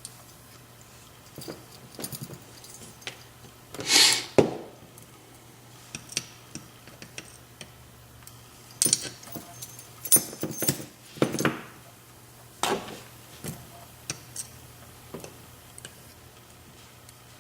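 Small metal lock parts, the pins and pieces of a disassembled euro profile cylinder, clicking and clinking as they are handled and set down. Scattered light clicks, with a louder clatter about four seconds in and a bunch of them a little past the middle.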